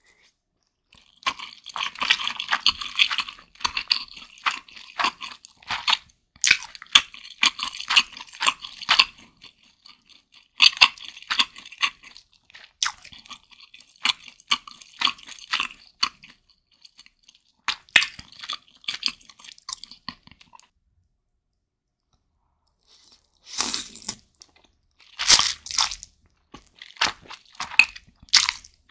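Close-miked chewing of soft instant noodles and sliced beef: wet, clicky mouth sounds in long runs with short breaks. After a pause, a few louder bursts near the end as noodles and beef are slurped in.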